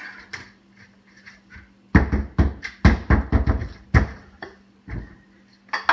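Drywall hatchet knocking in a quick run of sharp blows, about four a second, starting about two seconds in and again near the end: clearing where the bottom edge of a drywall sheet hangs up.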